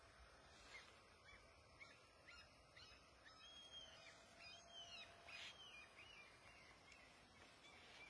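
Very faint, short high-pitched animal calls, chirping sweeps scattered over a few seconds against near silence.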